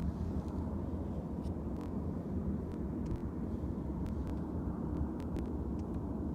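A deep, heavy, continuous hum of unexplained origin, the kind reported as a mysterious 'sky hum', holding steady without a break. A few faint short clicks are scattered through it.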